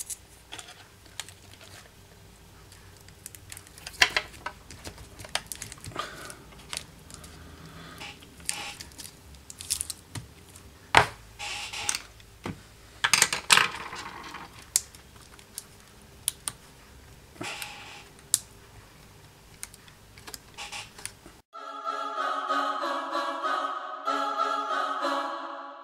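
Irregular clicks, taps and short rustles as hands work the sticky tape around a cordless-drill battery pack's cells and fit the cell stack and its contact plate into the plastic battery case. Near the end, background music takes over.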